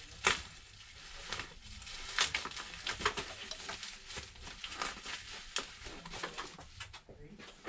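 Irregular small clicks, taps and crinkling from hand-handling of parts and packaging on a repair bench, with a sharp tap about a quarter second in and another about two seconds in.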